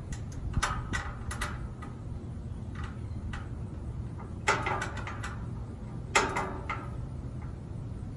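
Metal parts of a Weber Genesis II LX gas grill clinking and knocking as it is assembled by hand, with scattered light clicks and two louder clanks about four and a half and six seconds in. A steady low rumble runs underneath.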